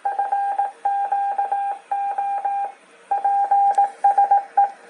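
Yaesu shortwave transceiver's CW sidetone as the radio automatically keys out a stored Morse code CQ call. It is one steady beep switched on and off in quick dots and dashes, grouped into letters with short gaps between.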